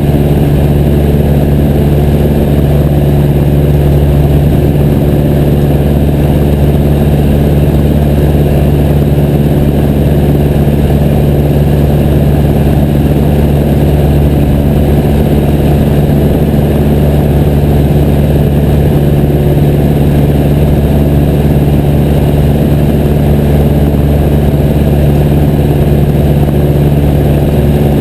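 Piper J3 Cub's engine and propeller running steadily at constant power, a loud unbroken drone.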